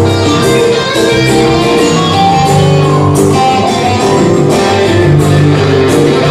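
Live guitar music: a guitar strummed and picked through an instrumental stretch of a song, with no singing.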